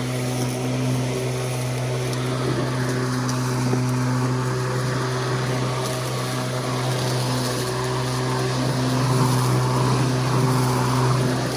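Sun Joe 24V-X2-17LM 48-volt cordless electric lawn mower running, a steady hum from its motor and spinning blade.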